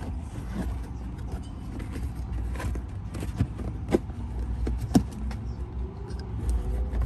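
Handling noise as a fiber-optic light engine unit is pushed into an elastic cargo net against carpeted car trim: rustling and scraping, with two short knocks about four and five seconds in, over a steady low rumble.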